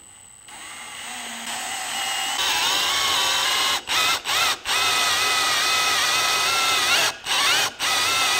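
Cordless drill on a slow setting boring a head stud hole into an aluminum 4B11 engine block through a drill guide bushing. The motor whine builds over the first couple of seconds, then holds steady, wavering a little in pitch and cutting out briefly about five times.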